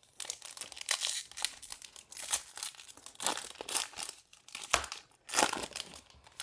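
Plastic trading-card pack wrapper being torn open and crinkled by hand, in irregular crackling rustles.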